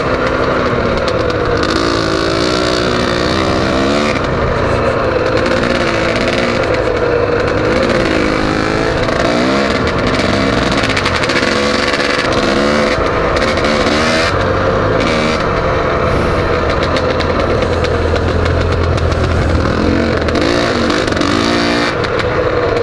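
Dirt bike engine running while riding, its pitch rising and falling with the throttle, with a steady rush of wind noise over the microphone.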